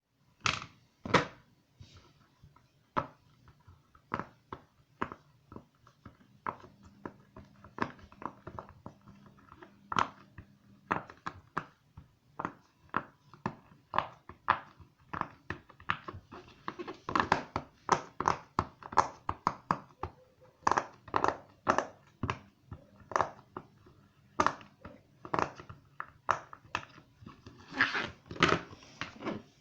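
Silicone pop-it fidget toy being pressed, its bubbles popping in sharp, irregular clicks, sometimes several in quick succession.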